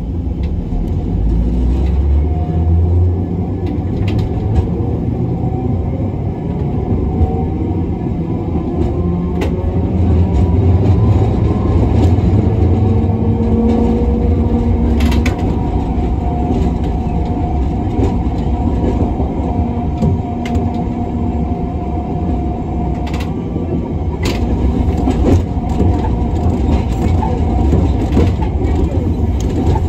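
Hiroshima Electric Railway 1900-series streetcar (former Kyoto city tram) running along the line, heard from on board: a steady low rumble of wheels on rail. Over it a faint motor whine slowly rises and falls with speed, and a few sharp clicks come from the wheels and track.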